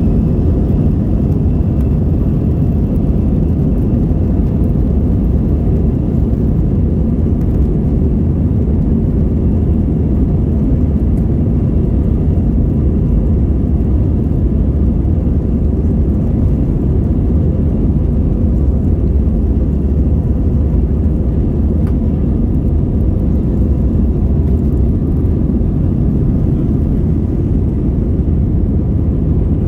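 Airbus jet airliner heard from inside the cabin on its takeoff roll: a steady low rumble of engines and runway, with a faint high engine whine that rises right at the start and then holds.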